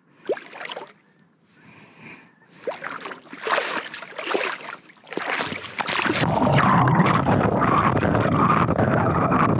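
Lake water splashing and sloshing in irregular bursts as someone wades barefoot over rocks into the shallows, then a steady, louder rushing noise from about six seconds in.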